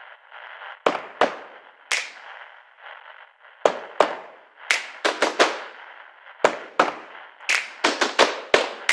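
Scattered single hand claps, irregular at first and coming faster toward the end, over a steady background hiss.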